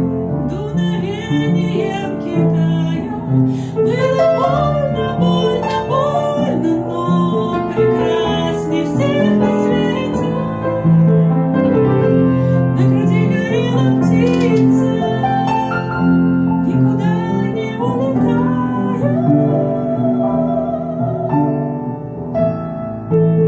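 Music: a song with piano accompaniment and a singing voice with vibrato.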